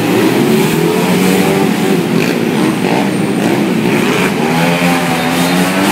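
Many motorbike and scooter engines running together, several revving so that overlapping engine notes rise and fall in pitch.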